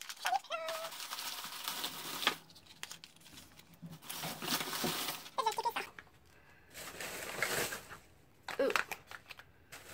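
Plastic spouted hair-mask pouches crinkling and rustling as they are handled and fanned out in the hand, in several separate bouts.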